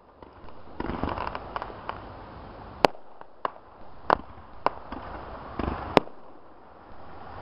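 Aerial fireworks bursting close overhead: a run of sharp single bangs about half a second apart from about three seconds in, the loudest near three and six seconds, with stretches of rushing, crackling noise between them.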